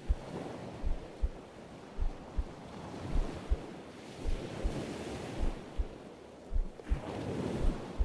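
A slow heartbeat, deep paired lub-dub thumps repeating a little slower than once a second, over a soft wash of ocean surf that swells and ebbs.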